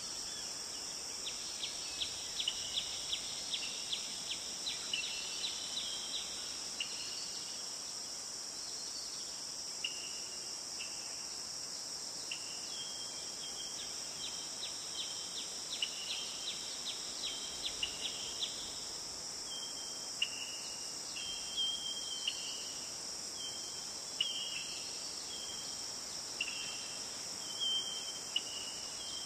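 Forest ambience: a steady high insect drone, with short high chirps and quick clicking trills repeating over it in clusters.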